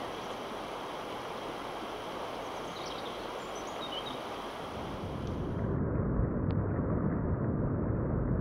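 Steady rush of river water with wind blowing across the microphone. A little past halfway the wind buffets the microphone harder, adding a louder low rumble.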